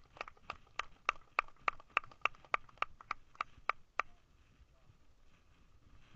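One person clapping close to the microphone, about fifteen claps over four seconds at an even pace, then stopping.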